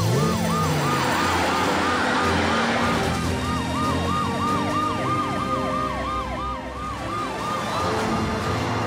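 Cartoon emergency-vehicle sirens (police car, fire engine and ambulance) sounding together: a fast, repeating up-and-down yelp, with two or more sirens overlapping near the middle.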